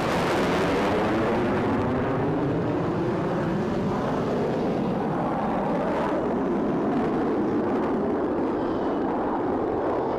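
Jet noise from US Air Force Thunderbirds F-16 Fighting Falcons in flight, a loud steady rush that cuts in suddenly and is loudest in the first couple of seconds. Through it runs a slow sweeping, phasing sound as the jets fly past.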